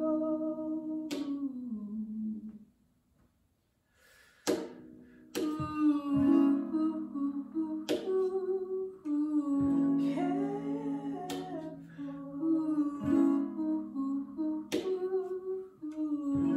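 Acoustic song: strummed acoustic guitar under a hummed vocal melody. The music falls almost to silence for about a second and a half, then comes back in with a strum.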